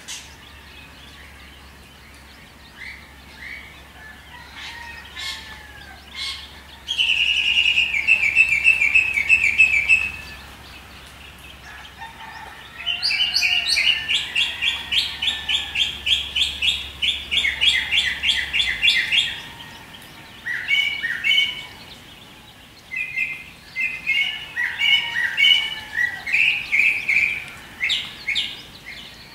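Birds calling: a few faint chirps, then loud runs of rapid repeated notes, one about seven seconds in and a longer one from about thirteen to nineteen seconds, followed by shorter bursts of calls.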